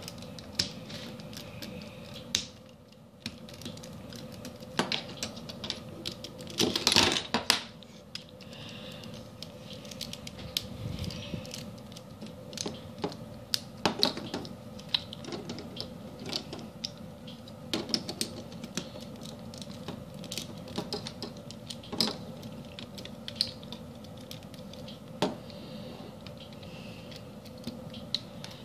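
Plastic Lego bricks and Technic parts clicking and clattering as they are handled and pressed together, in irregular sharp clicks with a louder flurry about seven seconds in. A faint steady hum runs underneath.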